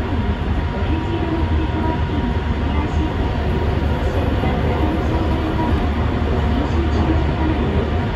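Yokohama Municipal Subway 3000A-series train running through a tunnel, heard from inside its rear cab: a steady, loud, deep rumble of the car and its wheels on the rails.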